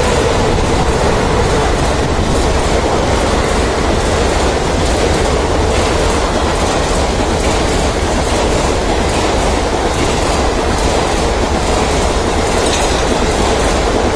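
Long express train's passenger coaches rushing past at high speed: a loud, steady rush and rumble of wheels on rail, with a rapid clickety-clack of wheels running over rail joints.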